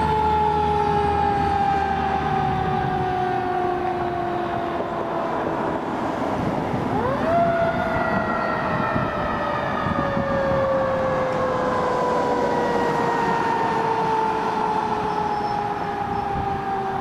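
Fire truck siren wailing as the truck moves away: a slowly falling tone that rises sharply about seven seconds in, then falls slowly again. The truck's low engine rumble fades over the first few seconds.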